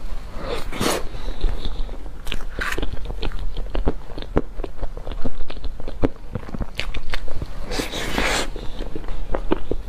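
Close-miked eating of a soft soy-milk box cake from a spoon: a continuous run of small wet mouth clicks and chewing, with three brief louder noisy bursts, near the start, about two and a half seconds in, and around eight seconds.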